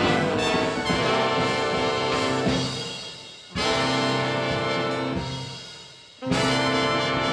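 Big band brass section playing loud held chords. The sound fades away twice, and each time a new full chord comes in suddenly, once midway and once near the end.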